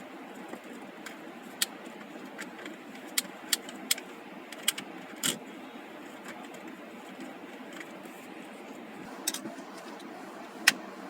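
Scattered sharp metallic clicks and taps of hand tools and small steering-wheel parts being handled during dismantling, about ten in all with the loudest near the end, over a steady background hum.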